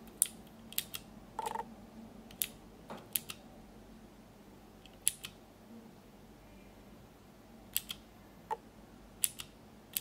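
Mechanical key switches on an ANAVI Macro Pad 8, a mix of Gateron and Cherry MX switches, being pressed and released one key at a time. Sharp clicks, often in quick pairs, come about a dozen times with long gaps in between.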